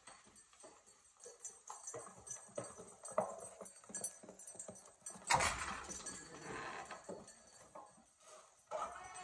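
Goat hooves clicking on a concrete barn floor as goats walk about, with a louder rustling burst about five seconds in as a goat passes close over the microphone.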